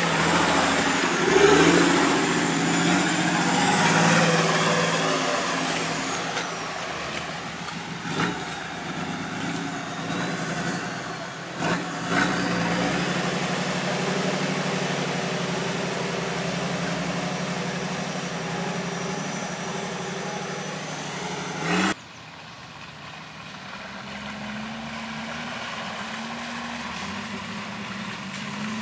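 Off-road 4x4 engine running and revving, with a few sharp knocks. About three quarters of the way through it cuts off suddenly and a quieter engine runs on.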